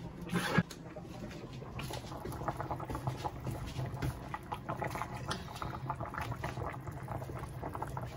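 A large pot of pumpkin soup boiling, bubbling and popping steadily. About half a second in, one sharp knock of a knife on a wooden cutting board.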